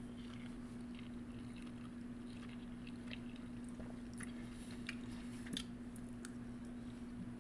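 A person chewing food close to the microphone, with small scattered wet clicks and smacks from the mouth, over a steady low hum.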